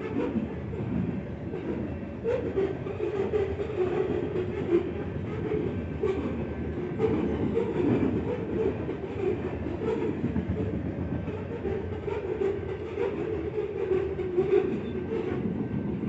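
Freight cars of a grain train rolling past, a steady rumble of wheels on rail with irregular clicks and clanks from the wheels and couplings.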